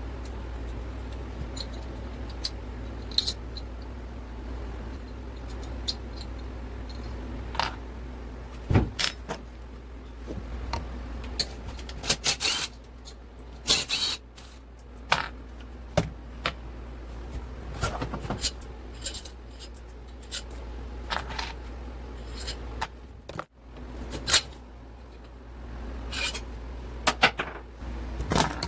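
Metal hand tools and engine parts clinking, tapping and scraping in irregular short knocks during a motorcycle engine teardown, over a steady low hum.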